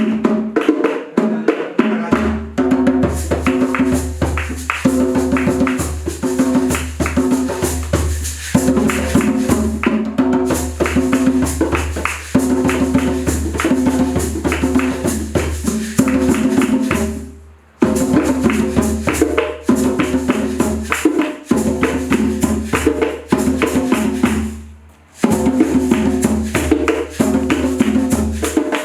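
Music with a dense percussion beat and a repeating melody. A low bass comes in about two seconds in, and the music drops out briefly twice in the second half.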